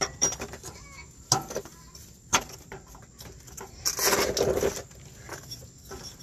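Sharp clicks and knocks of metal parts being handled under the vehicle, three of them in the first two and a half seconds, as the oil cooler is pulled free of its mount. About four seconds in comes a louder scraping rustle lasting under a second.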